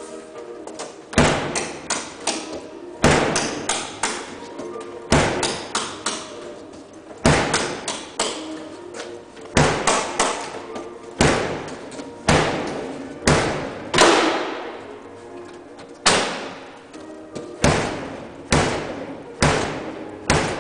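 Repeated bangs and thuds on a refrigerator's sheet-metal cabinet and door, a hard strike every one to two seconds followed by smaller knocks, each ringing briefly.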